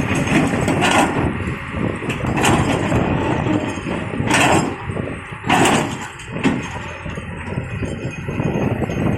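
Old Komatsu PC200 hydraulic excavator working, its diesel engine running steadily under load, with several short loud bursts of noise from the machine as it moves.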